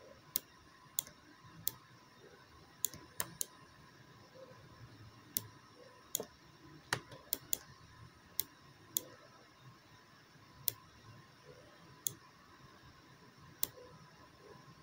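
Computer mouse button clicking: about sixteen sharp single clicks at uneven intervals, roughly one a second, over faint room tone.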